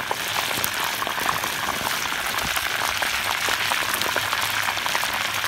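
Pork cheek deep-frying in a wok of hot oil: a steady sizzle thick with small crackles and pops as the scored skin crisps.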